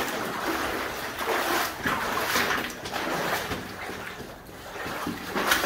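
Boots sloshing and splashing through shallow water on a mine tunnel floor, a few irregular splashing steps.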